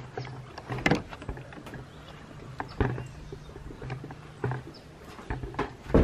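A farm animal, likely a goat at feeding time, making low grunting calls in short spells, mixed with scattered knocks and rustling.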